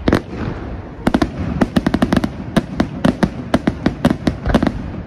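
Aerial firework shells bursting overhead: one sharp bang, then from about a second in a rapid, irregular volley of sharp bangs, about five a second, that stops shortly before the end.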